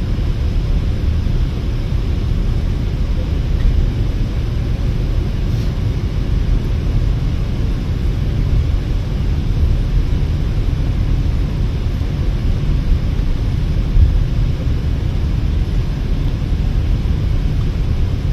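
Steady low rumble inside the passenger cabin of an Irizar i6S Efficient coach cruising at motorway speed: engine, tyre and road noise.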